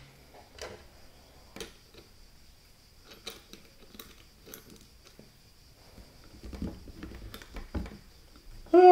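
Light clicks and taps of small metal parts and screws being handled as an iMac G4's chrome neck and display arm are worked on by hand, with a few low knocks later on. A short, loud pitched sound comes right at the end.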